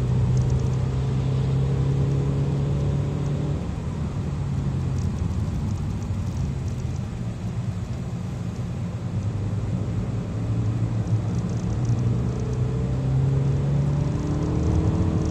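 Kia cee'd GT's turbocharged 1.6-litre four-cylinder engine heard from inside the cabin over tyre and road noise, holding a steady note, easing off about four seconds in, then climbing in revs again from about ten seconds as the car accelerates.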